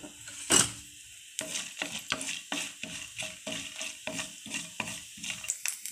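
A spatula stirring mustard seeds, dals and a dried red chilli in hot oil in a non-stick pan: one sharp knock about half a second in, then quick scraping strokes, about four a second, over the sizzle of the frying tempering.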